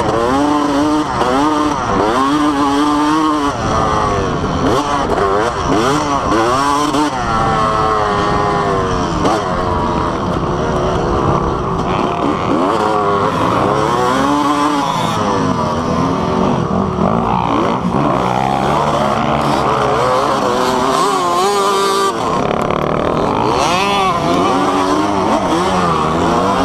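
Dirt bike engine heard from the rider's own bike, revving hard. Its pitch climbs and drops every second or two as the throttle is opened and closed and the gears change, over a steady low rumble.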